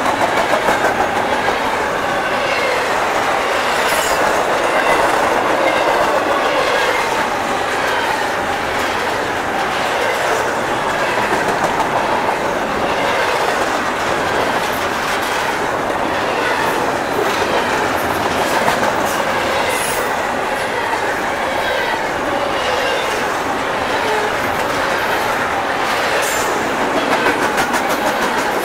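Double-stack intermodal train's container well cars rolling past close by: a steady loud rush and rattle of steel wheels on the rails, with sharp clicks every few seconds.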